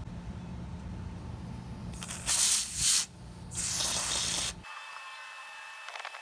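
Two hissing blasts from an aerosol can fired through its red extension straw onto small carburetor parts: a short, loud one about two seconds in and a longer, softer one about a second later.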